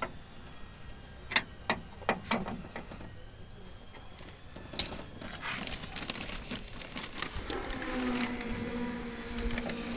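A screwdriver working at screws on a bare steel car-door inner panel: a few sharp metallic clicks and taps in the first half, then rustling as the loose door trim is handled. About 8 s in, a steady hum with overtones starts and runs on.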